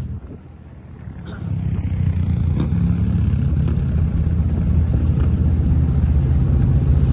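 A motor vehicle engine running with a steady low rumble, growing louder about a second and a half in and then holding.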